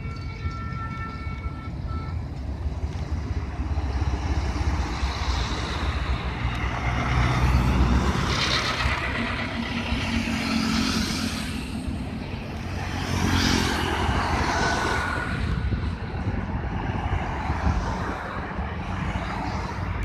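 Road traffic on a multi-lane road: vehicles pass by in swells, including motorcycles about halfway through, over a steady low rumble.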